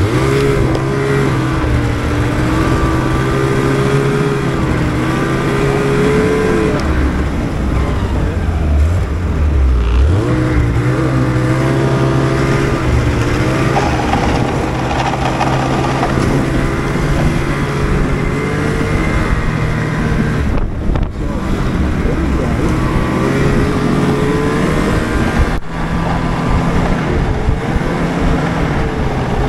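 Snowmobile engine running under way, its pitch rising and falling as the throttle is worked, with a couple of brief dips in the second half.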